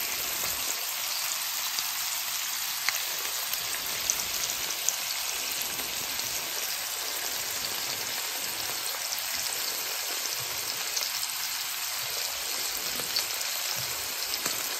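Cod fillets frying in salted butter in a pan: a steady sizzle with scattered small crackles.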